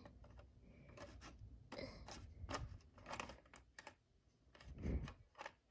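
Small plastic toy pieces clicking and scraping as a toy figure is fitted onto a toy sleigh and moved over a cardboard playset: a string of faint, irregular clicks, with a soft low thump about five seconds in.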